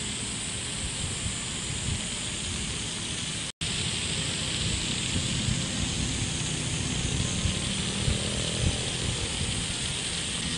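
A field of many pinwheels whirring and fluttering in the wind, with wind rumbling on the microphone. The sound cuts out for a split second about three and a half seconds in.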